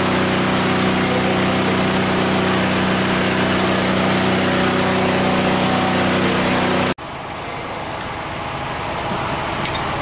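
A machine's motor running with a steady low hum; it cuts off abruptly about seven seconds in, leaving quieter steady background noise with a faint high whine and a few light clicks near the end.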